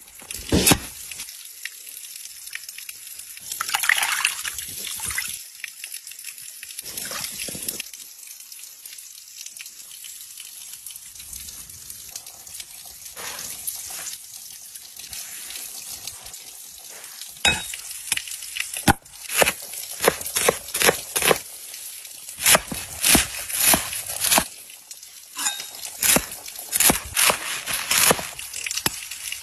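A small stream trickling and dripping steadily, and through the second half a kitchen knife chopping leafy greens on a wooden cutting board in quick runs of sharp strikes.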